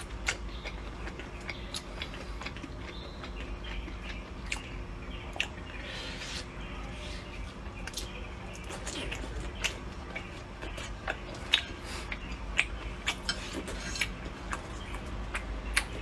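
A person chewing and eating food up close, with frequent sharp irregular clicks and smacks over a steady low hum.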